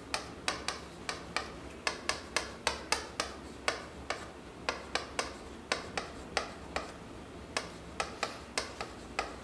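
Chalk writing on a chalkboard: a string of sharp, irregular clicks and taps, a few a second, with a short pause about two-thirds of the way through.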